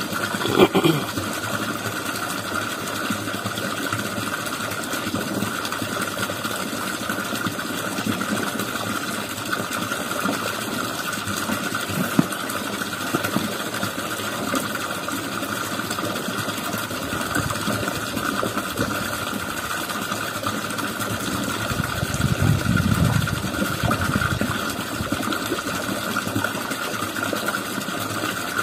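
A small engine running at a steady speed, with a sharp knock about half a second in and a brief swell of low rumble about two-thirds of the way through.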